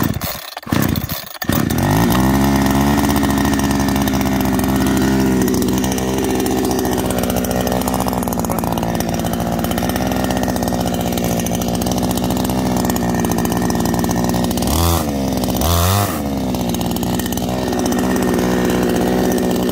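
Kawashima KCS 550P 54 cc two-stroke chainsaw being pull-started: a few short bursts as it fires, then it catches about a second and a half in and runs steadily. It is revved twice briefly near the end, the pitch rising and falling back each time.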